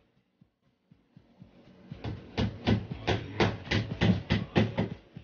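Claw hammer driving small nails into a thin board of a flat-pack cabinet: about a dozen quick, sharp strikes at roughly three a second, starting about two seconds in.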